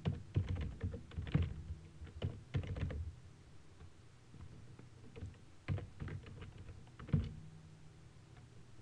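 Typing on a computer keyboard: a run of quick keystrokes, a pause of a couple of seconds, then a second, shorter run.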